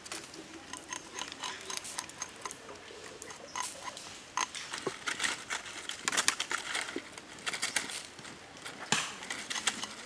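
A knife and then a hatchet blade shaving and knocking at a thin green bamboo stick, a run of sharp taps and cracks, the loudest a little past the middle and near the end.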